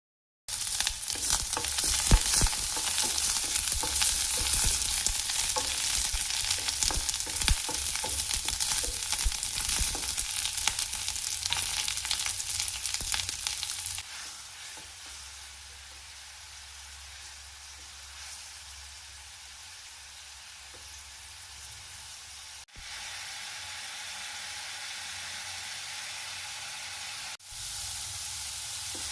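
Food frying in a pan with a steady sizzle and many small crackles. It drops noticeably quieter about halfway through, with two brief breaks later on.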